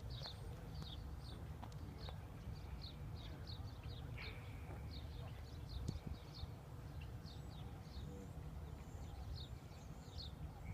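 Birds chirping: a run of short, high, quick chirps repeated over and over, above a faint low rumble.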